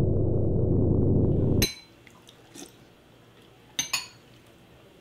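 Low synthesizer music that cuts off suddenly just under two seconds in. Then a quiet room with a few faint clinks, and about four seconds in two sharp clinks close together: spoons striking ceramic bowls during a meal.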